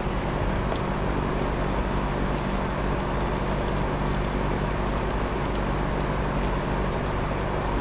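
Small jeweler's torch flame running with a steady hiss while heating a silver-solder joint on an orthodontic appliance wire, over a low steady hum.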